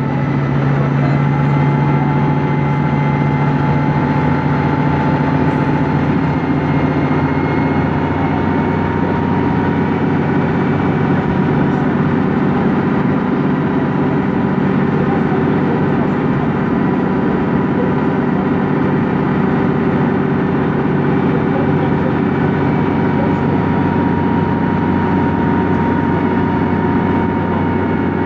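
Volvo B10M bus's mid-mounted six-cylinder diesel engine running at a steady pitch, heard from inside the passenger cabin as the bus travels.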